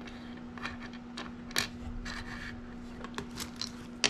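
Small resin charms being handled: a handful of light clicks, taps and scrapes, the sharpest about one and a half seconds in. A steady low hum runs underneath.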